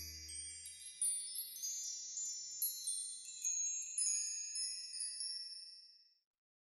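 Bright, high tinkling chimes, a scatter of twinkling notes that fade out over about five seconds. The last held notes of a gentle lullaby die away in the first second.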